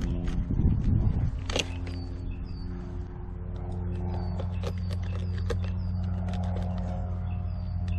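A knife scraping and clicking on a lane snapper as the fish is cleaned, over a steady low hum. A bird chirps repeatedly in short high notes.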